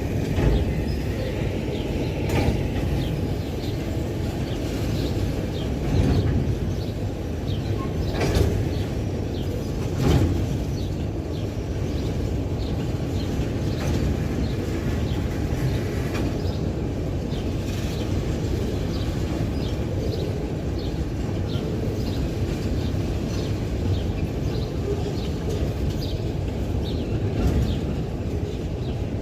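Train of empty freight wagons rolling by: a steady rumble with scattered clanks and knocks from wheels and couplings, the loudest ones in the first ten seconds.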